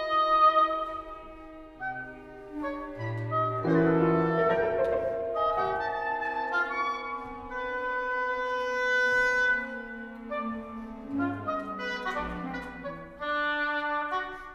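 Oboe and chamber ensemble (viola, cello, double bass, clarinets, percussion, piano) playing contemporary classical music. Several instruments hold long overlapping notes that shift from one chord to the next.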